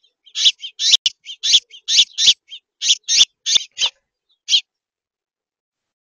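Small songbird at a seed feeder giving a quick series of short, high chirps, about a dozen in under four seconds, then one more a moment later. Picked up by the Netvue Birdfy feeder camera's own microphone.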